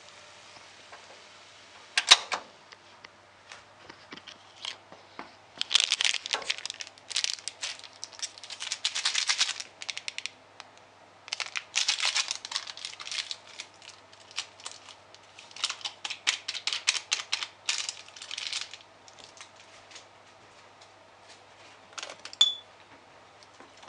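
Plastic powdered-soup packet crinkling in several bursts of rapid crackles as it is handled and emptied over the pan, after a single sharp click about two seconds in.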